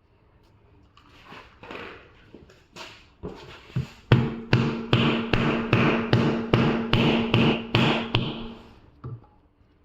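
Trigger spray bottle squirting soapy water onto a freshly plugged tire, softly at first and then in a quick run of about a dozen squirts, two to three a second, with a steady low tone underneath.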